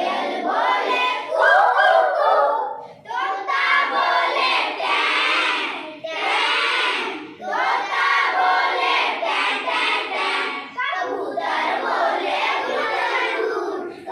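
A group of young children's voices calling out together in chorus, in phrases of one to three seconds with short breaks between.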